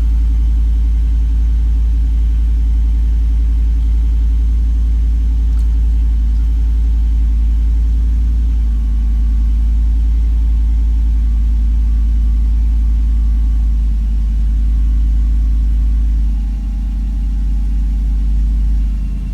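2006 Jeep SRT8's 6.1 Hemi V8 idling steadily just after a cold start, with a little lifter rattle; at this higher cold idle the cylinder 5 misfire has not yet set in. Near the end the sound drops a little.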